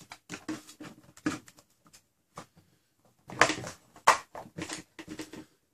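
Clear plastic blaster shell and magazine adapter being handled and pressed together: a string of irregular clicks and knocks, the two loudest about three and a half and four seconds in.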